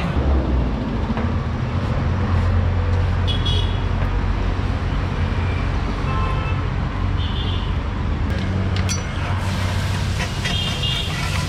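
Roadside traffic: a steady low engine rumble with several short vehicle horn toots. Near the end a hiss comes in as water hits the hot iron paratha griddle.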